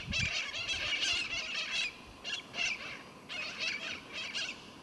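A flock of birds calling overhead: rapid, high chattering calls, dense for about two seconds and then coming in short bursts with brief gaps between them.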